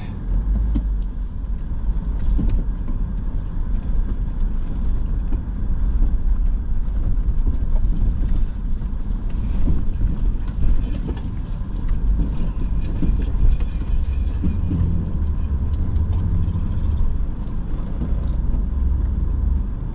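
Inside a vehicle crawling over a rocky dirt trail: a steady low rumble of engine and tyres, with many small knocks and rattles scattered throughout as the tyres go over rocks.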